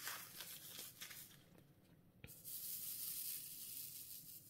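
Small plastic bag of glitter resin diamond-painting drills rustling as it is opened, then a single click, then the tiny drills poured out into a plastic tray with a hissing patter for about two seconds.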